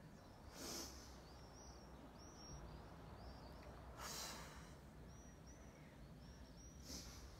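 A person's breathing during yoga movement: three short, hissing breaths about three seconds apart, timed with moving between plank and downward dog. Small birds chirp faintly in the background.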